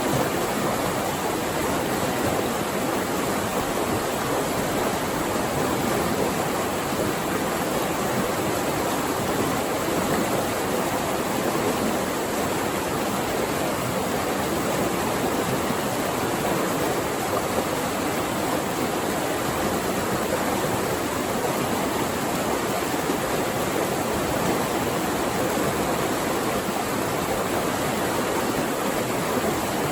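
Flowing water rushing steadily over rocks, a stream or small falls, in an even, unbroken hiss and roar.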